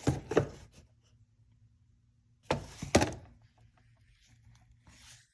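A few knocks and thuds in two short bunches about two and a half seconds apart, over a faint steady hum.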